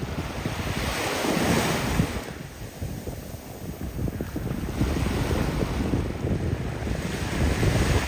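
Wind buffeting the microphone, with waves washing onto a beach, swelling twice.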